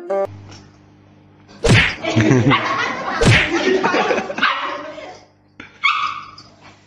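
Small dog barking in a quick run of sharp barks from about two seconds in, then quieter, with one more short call near the end.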